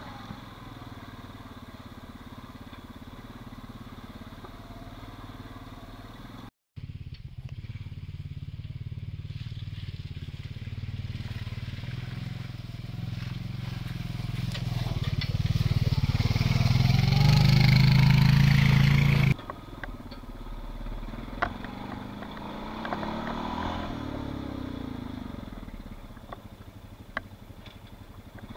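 Honda TRX520 ATV's single-cylinder four-stroke engine running as the quad is ridden over rough ground, with scattered clatter. Through the middle it grows steadily louder as the quad comes closer, then cuts off abruptly and drops back to a quieter running sound.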